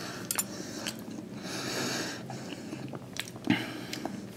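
A person chewing a mouthful of sweet potato, with a few sharp clicks of a fork against a plastic food container, two of them near the start and one near the end.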